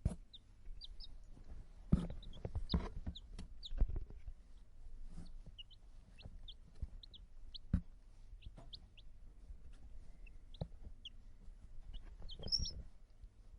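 Young chicks peeping: short, high, downward-sliding cheeps come irregularly, a few at a time, with a busier cluster near the end. Scattered soft knocks and rustling sound among them.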